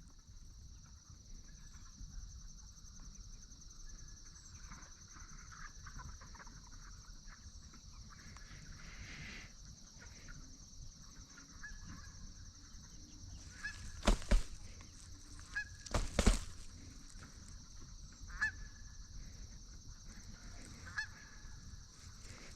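Canada geese honking: faint calls scattered through, with loud close honks about two-thirds of the way in and again near the end, over a steady high hiss.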